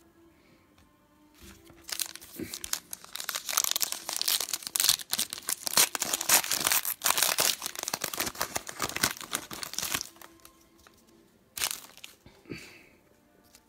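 A trading card pack wrapper torn open and crinkled by hand: several seconds of dense crackling from about two seconds in, stopping around ten seconds, with a couple of short taps near the end.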